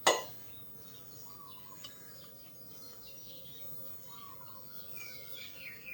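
Faint birdsong in the background: a few scattered chirps, with short sweeping calls near the end. A single sharp click right at the start.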